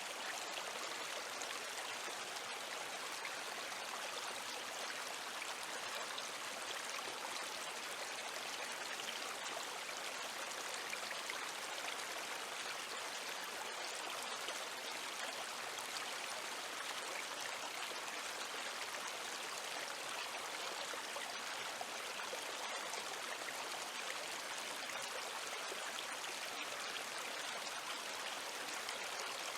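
River water flowing steadily: a continuous, even rush of water with little low rumble.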